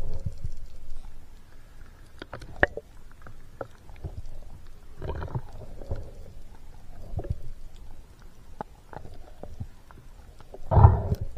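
Water sloshing and gurgling around a camera held just under the sea surface, heard muffled, in irregular low surges with the loudest near the end, and scattered sharp clicks in between.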